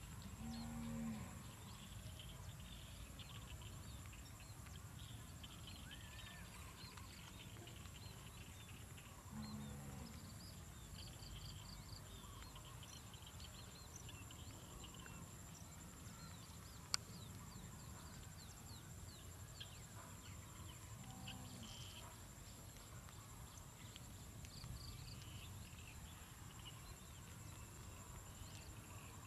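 Cattle mooing faintly three times, each low call about a second long: one about a second in, one around ten seconds, one around twenty-one seconds. Under them run scattered high chirps and a steady high whine, and there is a single sharp click near the middle.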